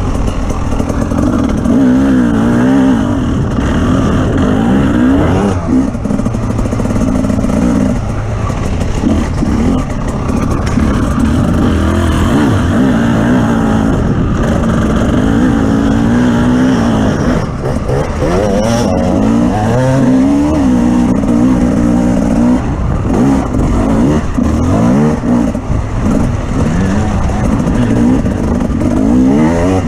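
An off-road vehicle's engine, heard close, revs up and down over and over as it is driven over rough terrain, with short lifts off the throttle now and then.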